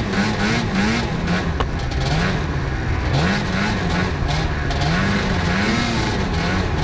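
Snowmobile engine running hard under way, its pitch rising and falling in repeated quick swells.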